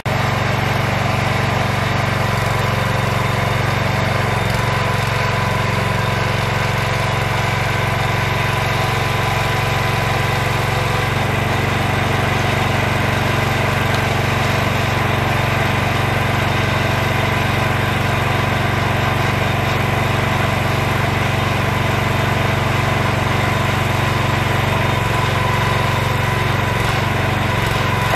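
Engine of a homemade water well drilling rig running steadily, a constant loud drone that does not change in speed.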